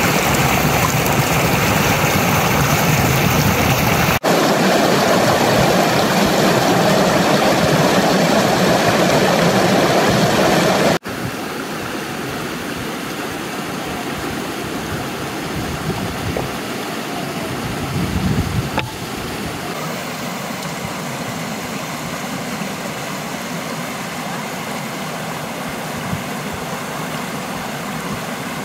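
Mountain river rushing over rocks, a steady loud water noise that drops in level about a third of the way in. A brief low rumble rises and fades about two-thirds of the way in.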